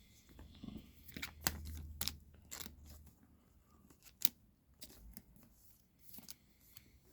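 Trading card being slid into a plastic card sleeve by hand: light rustling of plastic with a string of small clicks and taps, the sharpest about four seconds in.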